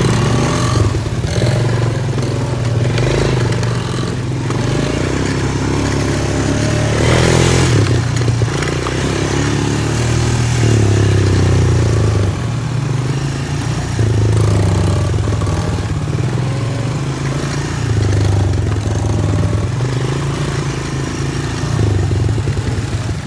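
ATV engine running while riding off-road, the throttle rising and falling every couple of seconds, with a brief rush of noise about seven seconds in.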